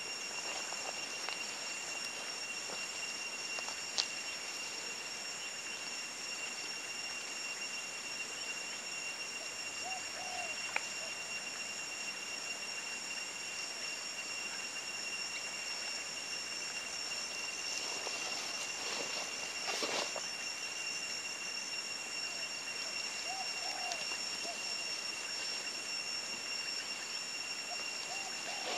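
Forest ambience dominated by a steady, high-pitched insect drone holding two pitches. A few faint short calls come through now and then, with a brief rustle about two-thirds of the way in.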